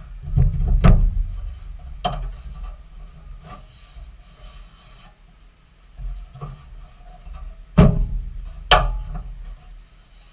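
Sheet-metal repair panel being offered up and trial-fitted into a car body: rubbing and scraping, with a few sharp knocks. The loudest knocks come about a second in, at about two seconds, and twice more near eight and nine seconds.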